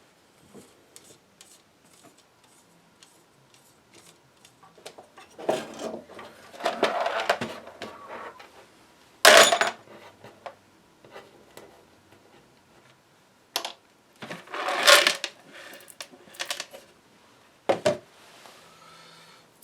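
Small parts being handled and set down on a work surface: scattered light clicks, a few bursts of clattering, and a sharp knock about nine seconds in, the loudest moment.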